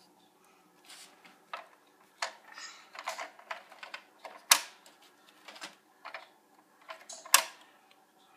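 Small plastic toy pieces clicking and tapping as a child handles a plastic play-food shop set, in scattered irregular clicks with two sharper clacks about four and a half and seven and a half seconds in.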